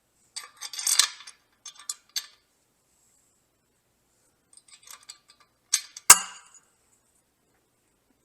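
Metal clinking and rattling of a wrench or socket on a wheel nut as the nut is worked off a bolt, in a few short bursts, with one sharp metallic knock about six seconds in.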